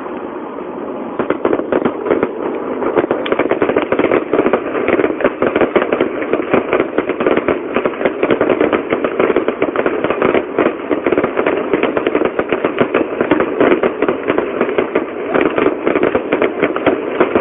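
Fireworks going off in a dense, unbroken barrage of rapid pops and crackles. It builds up about a second in, after a brief dip.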